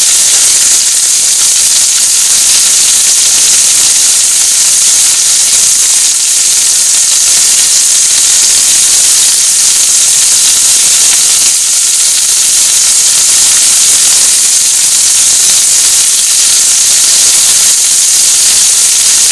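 Chicken thigh pieces pan-frying in a steel frying pan over a gas flame: a loud, steady, high sizzle that doesn't let up.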